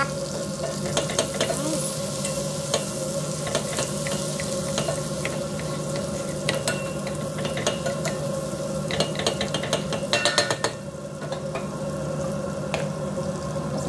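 Butter and chili flakes sizzling as they fry in an enamelled pot, with a spatula stirring and scraping against the pot in sharp clicks and taps. A quick flurry of taps comes about nine to ten seconds in.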